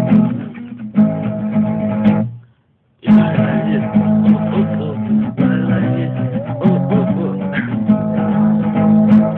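Acoustic guitar being strummed, chords ringing steadily; the sound drops out abruptly to silence for under a second about two seconds in, then the strumming resumes.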